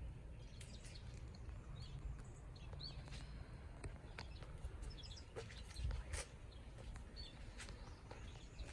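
Faint scattered bird chirps over low background noise, with a few soft clicks.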